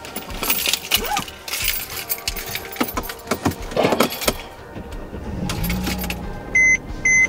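Car keys jangling and rustling as things are handled in a car's cabin, then a low steady hum comes in. Near the end, the Mercedes-Benz dashboard chime gives two short, loud electronic beeps.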